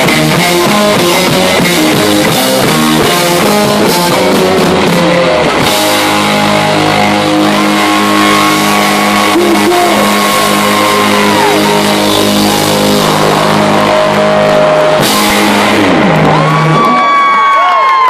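Live rock band playing loud: a choppy electric guitar riff over a drum kit, turning about six seconds in to long held chords. Near the end the band stops and crowd cheering starts.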